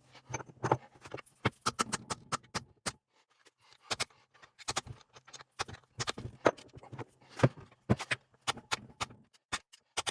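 Small metal parts and hand tools clinking and clattering irregularly, a quick run of sharp clicks and knocks with a few louder clanks, while a transfer case is being taken apart.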